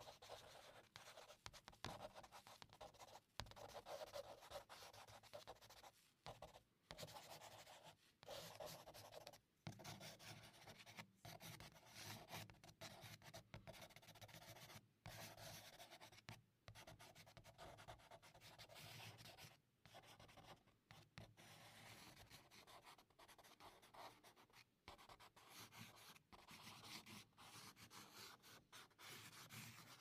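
Pencil writing rapidly on paper, shorthand-style: quiet, continuous scratching strokes broken by many brief pauses as the pencil lifts.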